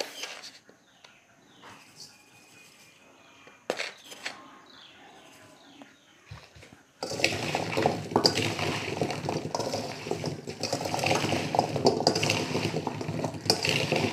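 Metal spoon stirring and tossing jujubes with coarse salt in a stainless steel bowl: a dense clatter of fruit and spoon against the steel, with scraping, starting about halfway through. Before that there are only a few faint clicks.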